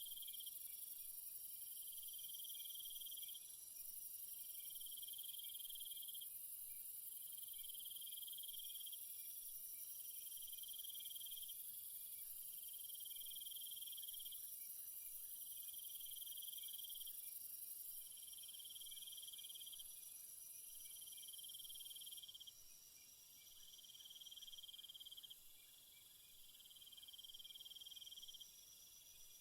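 Insects, crickets or bush crickets, chirping in a steady rhythm: a buzzy chirp about every second and a half, over a constant high-pitched hiss of more insects. It grows a little fainter in the last third.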